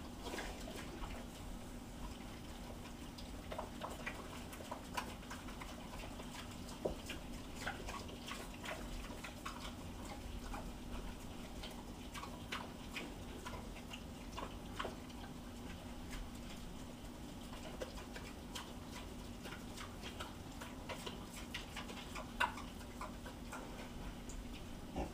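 Pigs chewing and smacking as they eat beets from metal bowls: an irregular run of small wet clicks, over a faint steady low hum.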